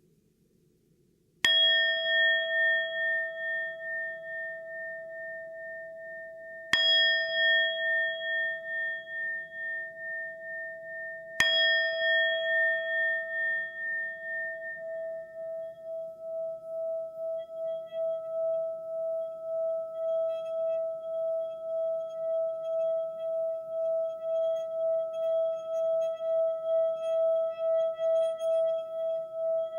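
Singing bowl struck three times, about five seconds apart, each strike ringing on with a pulsing, wavering tone. In the second half there are no more strikes and the bowl keeps singing in a steady pulsing tone.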